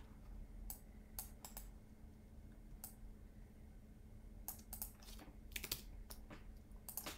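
Scattered clicks of a computer keyboard and mouse being worked: single clicks at first, then a quick cluster about two-thirds through. A faint steady low hum underneath.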